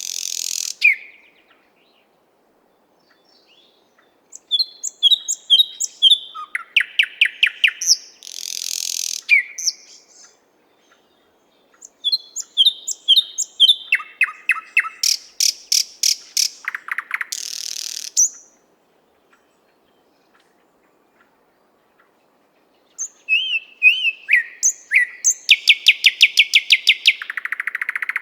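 Thrush nightingale singing: three song phrases, each a run of repeated whistled notes building into rapid trills and rattles, with pauses of a few seconds between phrases.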